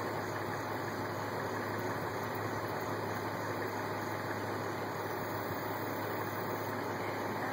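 Car engine idling steadily: a constant low hum under an even hiss.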